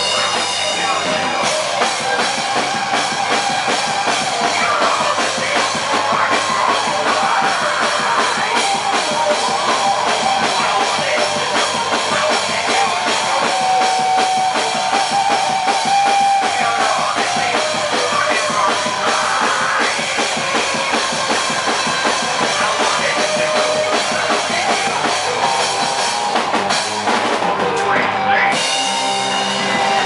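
Live rock band playing loudly: drum kit with electric guitar, some held lead notes in the middle of the passage.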